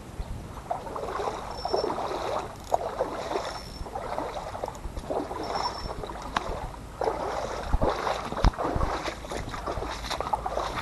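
Footsteps and rustling through dry leaves and brush, in uneven bursts with occasional sharp snaps.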